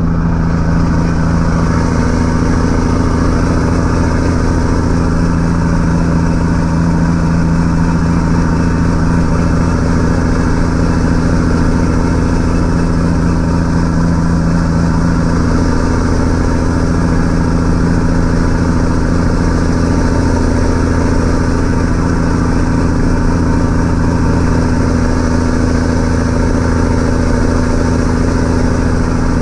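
1984 Mack R600's 237 inline-six diesel running steadily at an even pitch while hauling about 73,000 lb of corn, heard from inside the cab, with the loud note of its 5-inch straight-piped exhaust.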